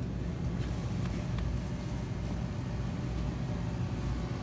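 Grocery-store background sound: a steady low hum and rumble with a few faint clicks.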